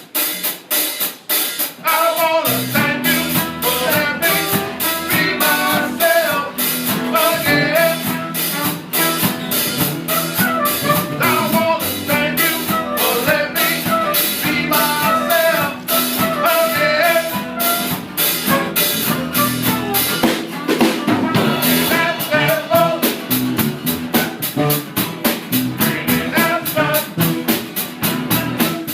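Live band playing an upbeat song on drum kit, bass and guitar, with a steady cymbal beat. The bass comes in about two and a half seconds in.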